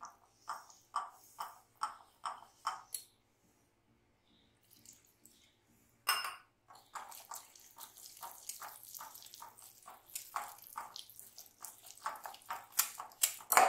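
Wire whisk beating a wet batter of flour, curd and water in a glass bowl: rhythmic strokes, about two a second at first, a pause of a few seconds, then faster strokes that grow louder near the end.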